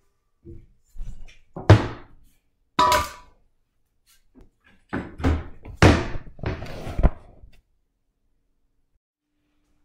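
Stainless steel mixing bowl being set down and shifted on a granite countertop: a series of clunks, one about three seconds in with a brief metallic ring.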